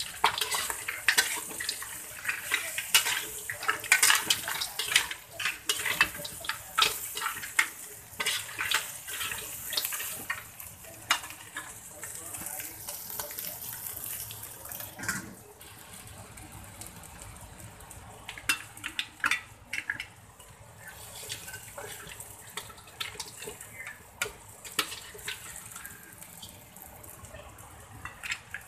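Utensil scraping and clattering against a wok as crab pieces are stir-fried quickly, over a steady sizzle of hot oil. The strokes come thick and fast through the first half and grow sparser later.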